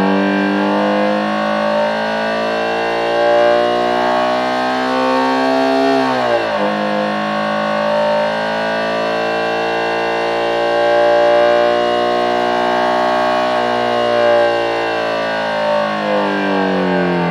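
Homemade engine-sound synthesizer imitating a Subaru EJ20 flat-four with equal-length exhaust, held at high revs of around 7,000 rpm as a steady, racing-style howl. The pitch drifts slowly and drops briefly and climbs back about six seconds in.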